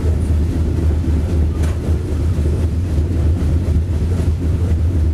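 Steady, loud low rumble of a moving freight train heard from aboard one of its cars, with a brief faint rattle about a second and a half in.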